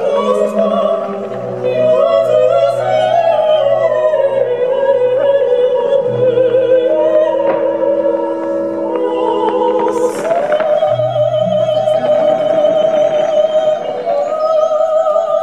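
Operatic singing with orchestral accompaniment: a high voice holds long notes with vibrato over sustained low notes.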